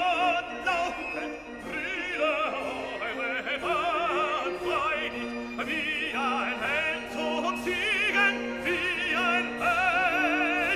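Operatic singing: a voice holding long notes with a wide vibrato over an orchestral accompaniment.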